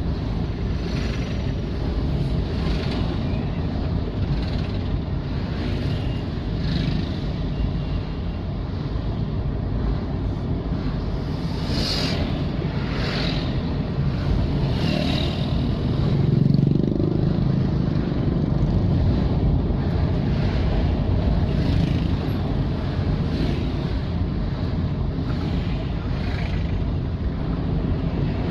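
Road traffic: car and motorcycle engines running in a steady, continuous rumble.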